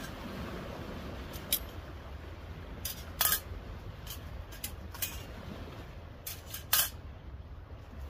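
A long-handled metal tool knocking and clinking against the walls of a folding metal firebox camp stove, in a series of sharp irregular clanks. The loudest come about three seconds in and just before the end. Underneath runs a steady hiss of surf and wind.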